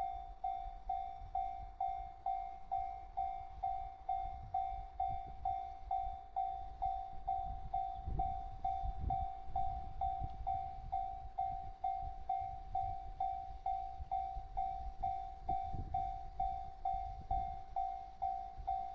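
Japanese level-crossing alarm: an electronic bell striking one steady tone a little over twice a second, without pause, warning that a train is approaching and the crossing is closed.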